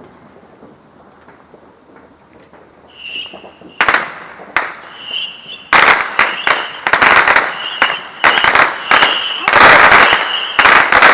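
Fireworks going off: a high steady whistle comes and goes, a couple of sharp bangs land about four seconds in, and a rapid run of bangs and crackling follows from about six seconds on.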